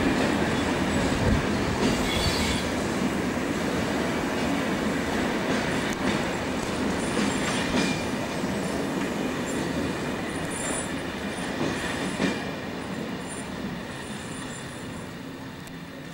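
Passenger coaches behind a steam locomotive rolling out of the station along the platform, wheels rumbling on the rails with brief high wheel squeals, the sound slowly fading as the train draws away.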